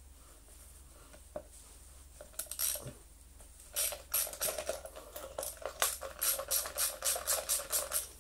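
Socket ratchet clicking in a quick run of strokes, about five clicks a second, undoing the nut that holds the fan on a vacuum cleaner motor. A few scattered metal clicks come before it.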